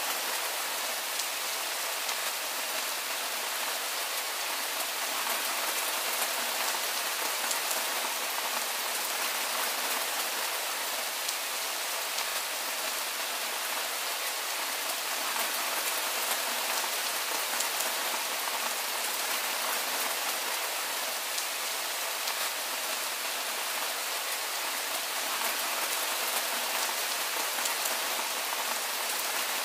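Soft rain falling steadily: an even hiss of many fine raindrops with a light patter.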